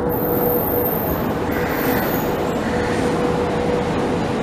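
Passenger coaches of an arriving train rolling slowly along the platform track: a steady rumble of wheels on rail, with a thin steady whine above it.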